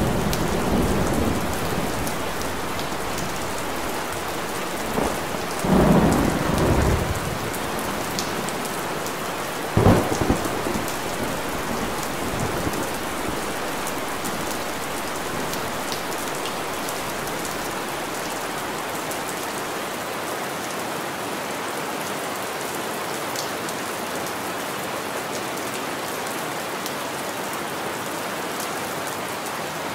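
Steady rain falling, heard as an even hiss throughout. Low rumbles swell up near the start and again about six and ten seconds in, the one at ten seconds the sharpest and loudest.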